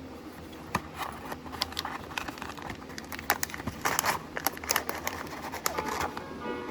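Crinkly blind-box packaging being handled and opened by hand: a run of irregular sharp crackles and crinkles, thickest around the middle.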